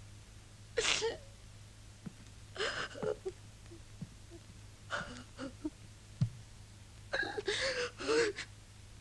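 Four short, breathy bursts of a person's voice, like gasps or whispered words, over a steady low hum.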